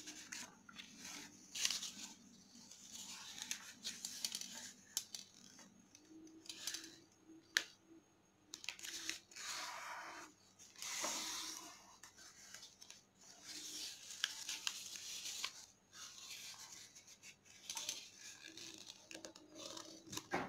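A sheet of origami paper rustling and crinkling as it is handled and folded, in uneven bursts. Every so often there is a short crisp snap where a crease is pressed flat.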